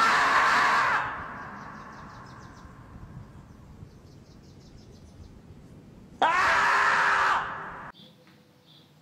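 Two long, loud screams from the screaming-marmot meme clip, each starting with a sharp upward jump in pitch. The first fills the opening second and the second comes about six seconds in.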